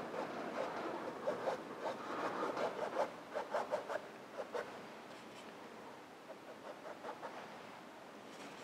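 Fine paintbrush stroking acrylic paint onto canvas: a run of short, quick brush strokes, denser and louder for the first four seconds or so, then fewer and fainter.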